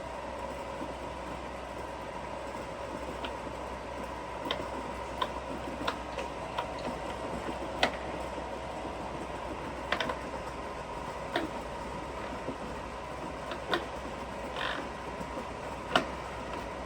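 Novisa radial arm drill running with its spindle on power feed at the minimum feed rate: a steady hum with a high held tone, broken by irregular sharp clicks and ticks.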